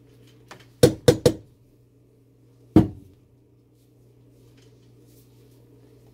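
Silicone spatula knocked sharply against the rim of a stainless steel pot of hot-process soap batter: three quick raps about a second in and one more a couple of seconds later, each ringing briefly, over a faint steady hum.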